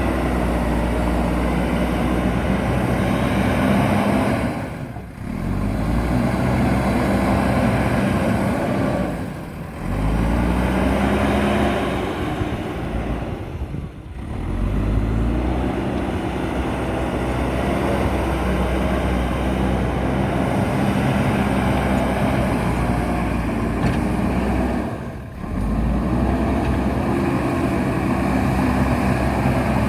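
A JCB backhoe loader's diesel engine running as the machine works: a low, steady drone whose pitch shifts now and then. The sound drops away briefly four times.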